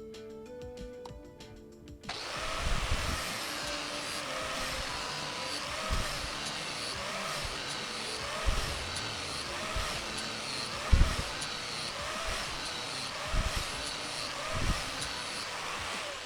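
Angle grinder with a flap disc grinding a steel mower blade's cutting edge. It starts about two seconds in and runs steadily, its pitch dipping and recovering over and over as the disc is pressed and eased along the edge, with a few low knocks, then it stops at the end.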